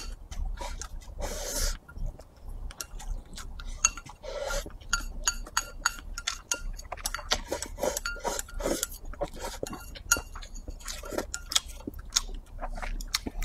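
Close-miked eating: wooden chopsticks clicking and scraping against a ceramic rice bowl as the last of the rice is pushed into the mouth, with chewing between the clicks.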